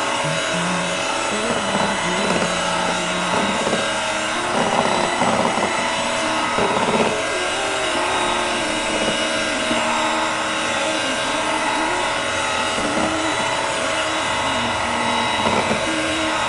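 Electric hand mixer running steadily, its beaters whipping cream with Milo chocolate-malt powder in a stainless steel bowl.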